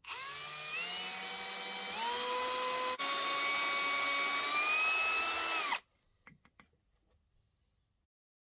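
Small handheld power tool motor running, its pitch stepping up a few times as the speed is raised, then switched off suddenly about six seconds in. A few light clicks follow.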